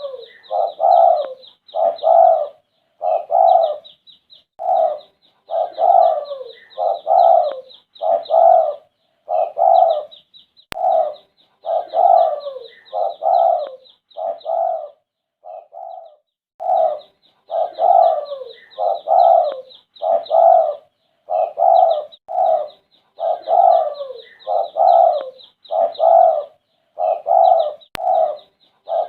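Spotted dove (derkuku) cooing over and over in a steady run of low coo phrases, a brief weaker stretch around the middle. Above it runs a rapid high twittering chirp from a small bird, pausing briefly around halfway.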